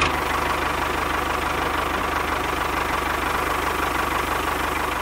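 A small motor running steadily, with a fast, even rattle under a steady mid-pitched whine.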